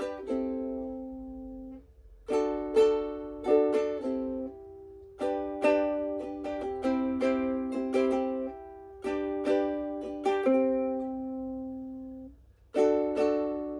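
Ukulele strumming chord riffs: short phrases of a few quick strums, each ending on a chord that is left to ring out, repeated about four times with brief pauses between.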